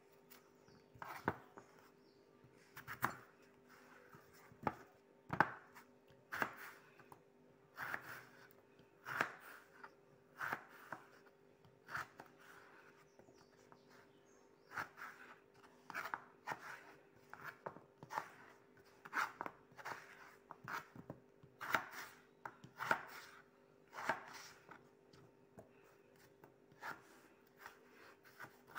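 Kitchen knife cutting raw potatoes into wedges. The blade knocks on the cutting board in irregular strokes roughly once a second, with a short scrape of the blade through the potato at each cut.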